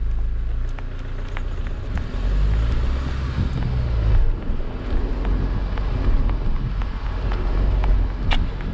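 Wind rumbling on the microphone of a camera moving along a road, with steady road and vehicle noise and a few faint taps.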